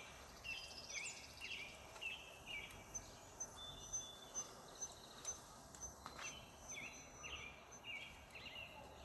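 Faint wild birds chirping: many short, quick chirps throughout, with a run of high, evenly spaced peeps, about three a second, for a few seconds in the middle.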